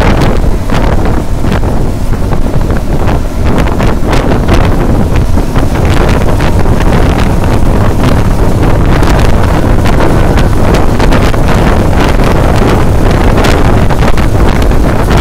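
Wind buffeting a phone's microphone through the open side window of a vehicle travelling fast along a road: a constant loud rush full of rapid gusts, with the vehicle's running and road noise underneath.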